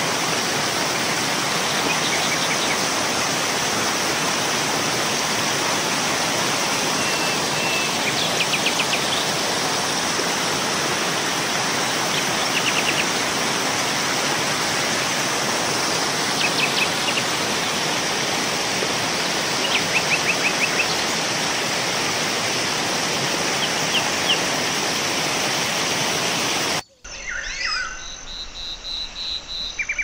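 Steady rushing of flowing water, like a waterfall or stream, with brief bird chirps and trills every few seconds. About 27 seconds in, the water sound cuts off abruptly and gives way to clearer birdsong.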